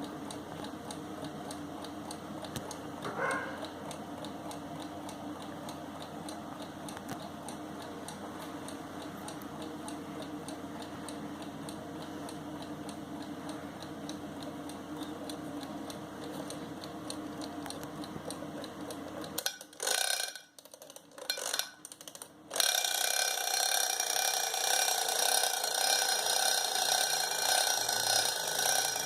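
Kaiser alarm clock ticking steadily, then about twenty-two seconds in its alarm goes off: a louder, steady ring with several pitches at once.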